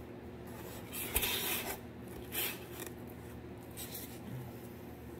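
Faint handling sounds: a few brief scrapes and rubs, with a light knock about a second in, over a low steady hum.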